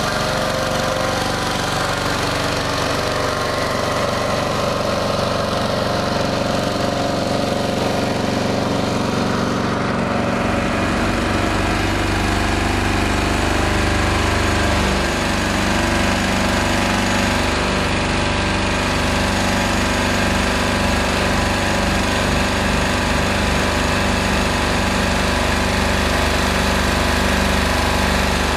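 Air-cooled Lifan four-stroke engine of a long-tail mud motor running steadily at high throttle, driving the boat. About ten seconds in its note changes to a deeper, fuller sound close to the engine.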